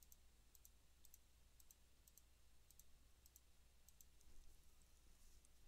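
Faint clicks from a computer mouse or keyboard, about two a second, evenly spaced, in near silence.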